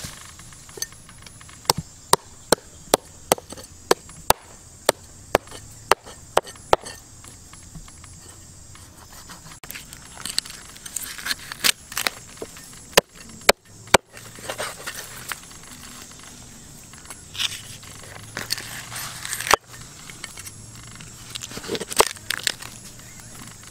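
A blade chopping, with sharp evenly spaced strikes about two a second for the first seven seconds, then irregular rustling and scraping.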